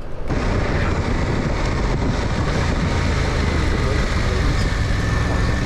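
Steady wind rush and road noise with a Yamaha Tracer 700's parallel-twin engine running underneath while riding, picked up by the camera's own microphone because the helmet mic has been knocked out. The sound sets in abruptly just after the start.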